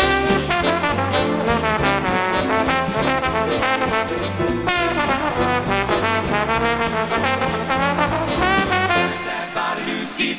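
Trombone solo over a jazz big band backing of bass and drums. The bass drops out about nine and a half seconds in.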